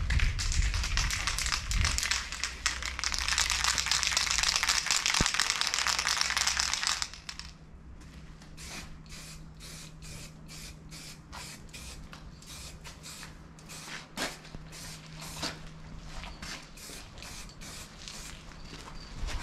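Aerosol spray-paint can spraying in one long continuous hiss that stops abruptly about seven seconds in. It is followed by a run of short, sharp sounds about twice a second.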